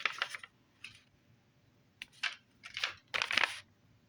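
Toy packaging rustling and crinkling as it is handled, in several short spells, the longest just after three seconds in.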